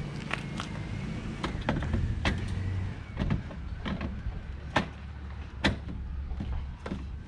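Scattered sharp plastic clicks and knocks as a fog light is pushed and secured into a BMW E36's front bumper by hand, over a steady low hum.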